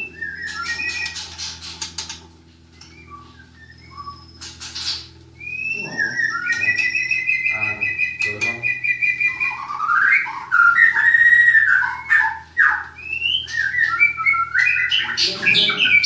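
Caged white-rumped shamas (murai batu) singing: varied whistled phrases, chirps and trills, including a long held whistle with a fast trill near the middle. The song grows louder and busier in the second half.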